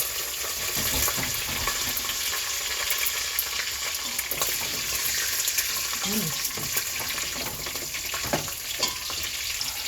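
Bacon frying in a pan: a steady hiss of sizzling fat with many small crackles and pops.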